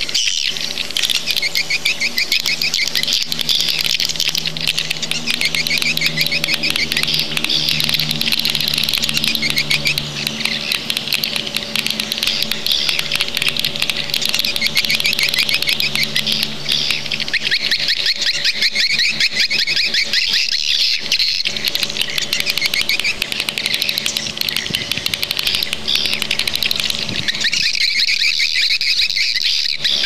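Swiftlet calls: a dense, continuous chatter of rapid high chirps, with a faint low steady hum beneath. This is a swiftlet-house lure track, the kind played through speakers to draw swiftlets in to roost and nest.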